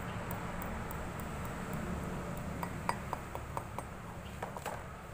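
Light metallic clinks and clicks, about eight in a quick irregular run starting about halfway in, as small hydraulic cylinder parts (metal rings and seals) are handled during seal fitting, over a steady low background rumble.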